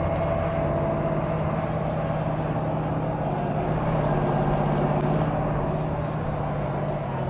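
A motor running steadily: a continuous mechanical drone with several constant tones under a noisy rumble.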